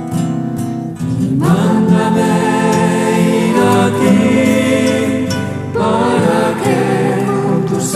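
Background music: a Christian song with choir voices over sustained accompaniment, a new sung phrase beginning about a second in.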